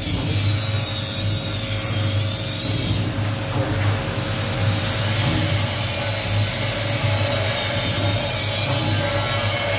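Steady hum and whir of the electric motors of an automatic rice-husk furnace, its blower and husk feeder running while husks are fed into the firebox.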